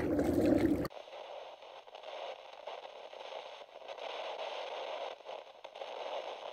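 Brief water and wind noise from kayak paddling that cuts off abruptly about a second in, followed by a steady radio-like static hiss.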